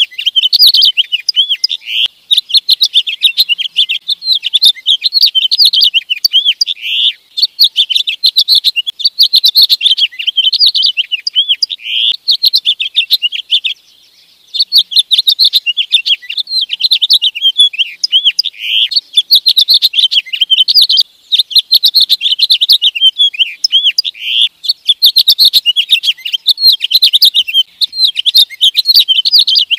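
Male house finch singing: a long, rapid, jumbled warble of twittering notes, in phrases of several seconds broken by short pauses.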